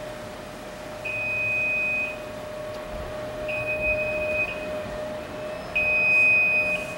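An electronic beeper sounds three long, high beeps, each about a second long and roughly two seconds apart, over a steady hum.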